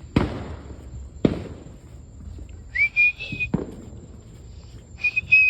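Fireworks going off, three sharp bangs with echoing tails, mixed with a high whistle that comes twice, the second time as a quick string of short pulses that trail off.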